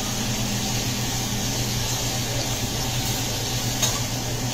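Food sizzling on a hot teppanyaki griddle, a steady hiss over a steady low hum, with a single sharp click about four seconds in.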